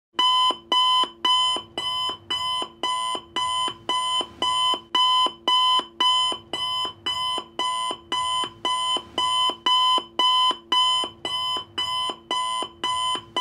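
Countdown timer sound effect: a short electronic alarm-clock-style beep repeated evenly, about twice a second, marking off the seconds.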